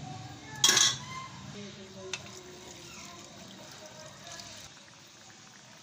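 A thick liquid masala poured from a container into a hot metal pan of fried mutton and potatoes, with a short loud splash under a second in, then a quieter pour.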